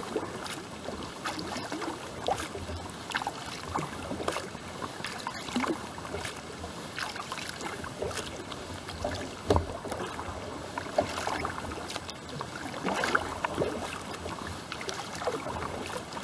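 Kayak paddle strokes in calm water: the blades dipping and pulling on alternate sides, with small splashes and drips from the paddle.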